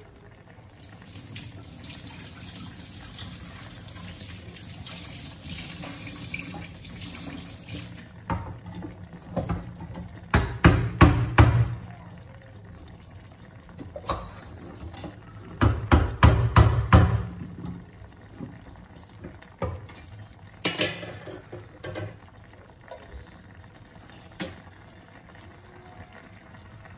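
A pan of chicken and potatoes simmering in broth, a steady watery hiss that is strongest in the first eight seconds. Two loud clusters of knocks and thumps come about ten and sixteen seconds in, with a few lighter knocks after.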